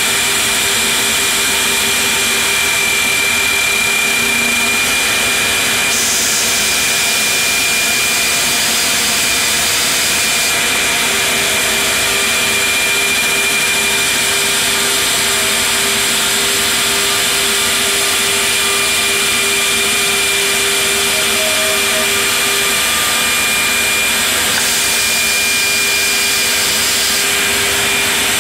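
CNC stair routing machine's 7-horsepower router spindle running while its bit cuts into a wooden stair board, a loud steady machining noise with a high whine held throughout.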